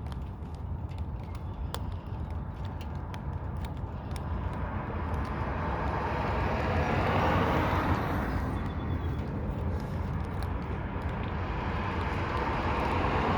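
Outdoor background noise: a steady low rumble with faint scattered ticks, swelling twice into a louder rushing sound, about seven seconds in and again near the end.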